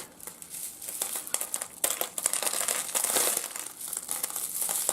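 Small pieces of rough opal and opalised fossil being picked up and shuffled by hand: a dense, irregular run of small clicks and scraping.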